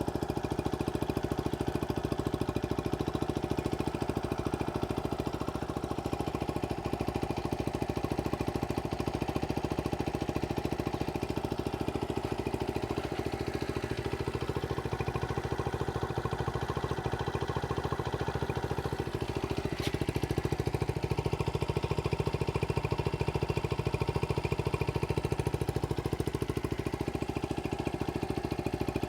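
1970 Honda CT70H's small single-cylinder four-stroke engine idling steadily.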